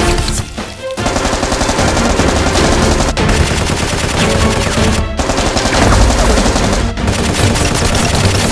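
Rapid automatic gunfire, a dense run of shots broken by brief pauses every couple of seconds.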